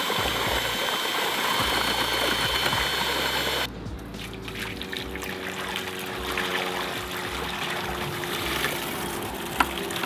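A cordless drill with a paddle mixer churning wet concrete in a plastic bucket, which cuts off suddenly about three and a half seconds in. It is followed by loose, wet concrete sliding and pouring out of the bucket into a form.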